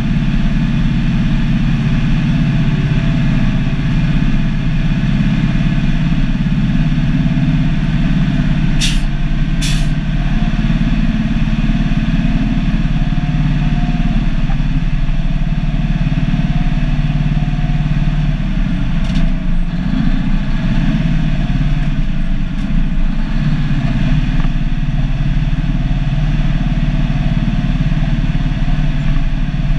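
Turbocharged Cummins NH-180 straight-six diesel of an International F-210D dump truck running steadily while driving, heard from inside the cab. Sharp knocks come twice close together about nine and ten seconds in, and once more fainter around nineteen seconds.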